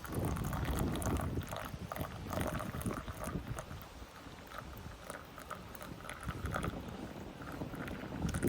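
Small wood fire burning in a Savotta Happy Stove: irregular crackling and popping over an uneven low rumble that swells and fades.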